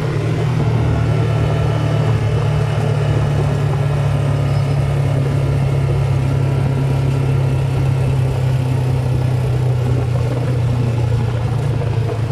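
Honda ATV's engine running steadily as the quad cruises along a paved road, a constant low drone heard close up from the handlebars.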